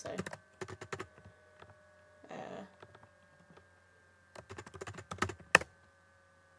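Keys tapped on a computer keyboard in two short flurries, one in the first second and another from about four and a half seconds in, the last keystroke the loudest, with a brief soft rustle between them.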